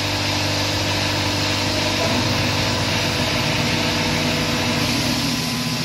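A steady motor hum with a hiss over it, machinery running without a break, likely the tire-changing machine at work on an ATV tire.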